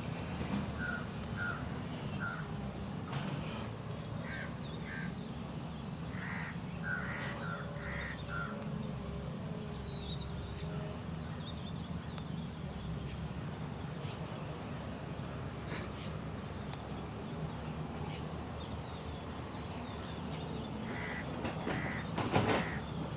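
Crows cawing, in runs of short repeated caws through the first nine seconds or so and again near the end, over a steady low background rumble. A short loud knock sounds near the end.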